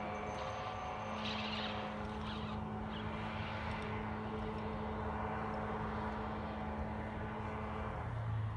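Boat motor running at one steady pitch, cutting off shortly before the end.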